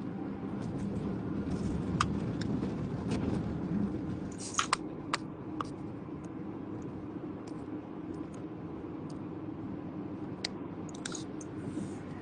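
Steady low hum inside a car cabin, with scattered small clicks and taps and a brief cluster of them about four and a half seconds in.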